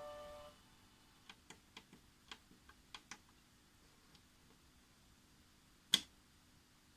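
The last tones of a program timer's built-in electronic chime dying away, then light clicks from the timer's buttons being pressed: about eight in two seconds, and one louder click about six seconds in.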